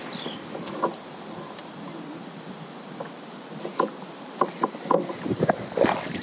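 Water and wind noise around a kayak, with a run of short splashes in the second half as a small hooked bass thrashes at the surface next to the boat.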